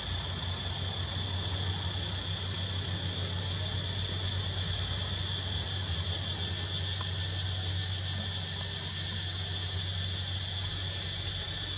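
Steady, even chorus of insects, high-pitched, over a low steady hum.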